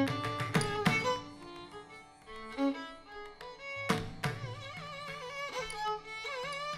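Live Carnatic music for Bharatanatyam. A violin plays a gliding, ornamented melody over a steady drone, with mridangam strokes in the first second and again about four seconds in.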